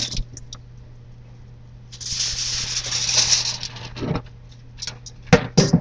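Tap water running for about two seconds as a peeled carrot is rinsed, followed by a few sharp knocks near the end.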